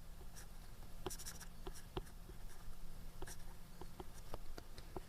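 Pen writing: light, irregular taps and short scratches of the tip as an equation is written out.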